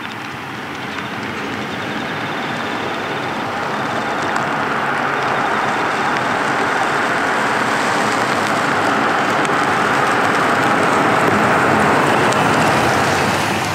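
A car driving past on the road: engine and tyre noise grow steadily louder for about twelve seconds as it approaches, then begin to fade near the end as it goes by.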